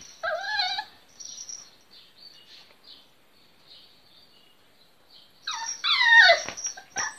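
Miniature Pinscher puppy making high-pitched whiny yelps, a cross between a whimper and a bark. A short wavering one comes just after the start, faint small sounds follow, and a louder, longer one falling in pitch comes near the end, then a short one.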